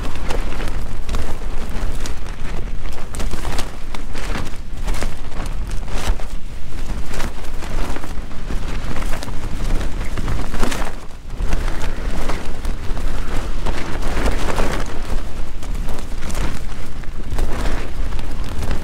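Strong gusting wind buffeting a small backpacking tent, the fabric walls flapping and snapping again and again over a deep rumble. The wind eases briefly about halfway through, then gusts hard again.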